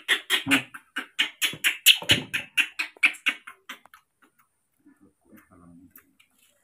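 Baby macaque giving a rapid run of short, high squeaks, about four or five a second, crying for its milk bottle; the squeaks stop about four seconds in, once it is feeding.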